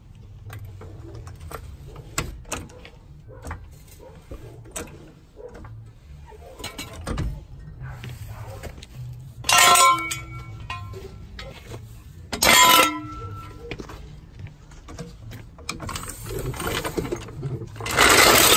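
Steel floor jack and jack stands being handled on concrete under a car: scattered light clicks and knocks. Two loud metal clanks, each ringing briefly, come about three seconds apart, and a louder rushing clatter follows near the end.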